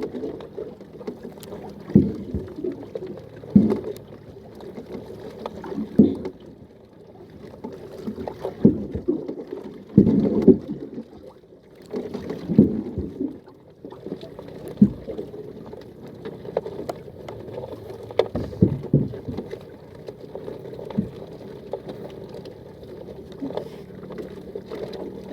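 Small boat on the water, with irregular knocks and splashes against the hull every one to three seconds over a faint steady hum.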